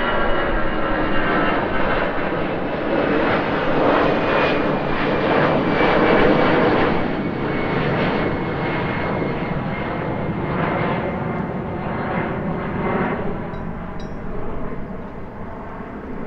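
Jet airliner engines roaring, with a high whine that slowly falls in pitch as the sound gradually fades.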